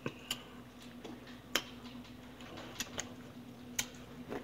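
Close-up eating sounds: scattered sharp mouth clicks and smacks, about six in four seconds, over a faint steady hum.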